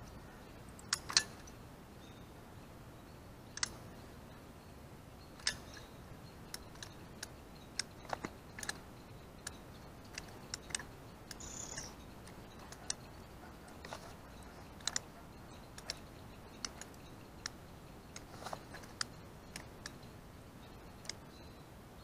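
Hand caulking gun clicking and ticking at irregular intervals as its trigger is squeezed to push out a bead of roofing tar along the edge of a plastic septic tank riser, the loudest click about a second in.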